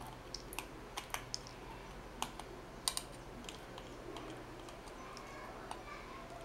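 Side cutters snipping the excess component leads off a soldered circuit board: a string of sharp, irregularly spaced clicks.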